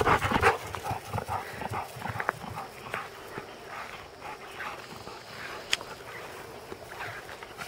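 A dog panting and moving right at the microphone, loudest in the first half-second with quick, irregular breaths, then fainter and scattered as it moves away.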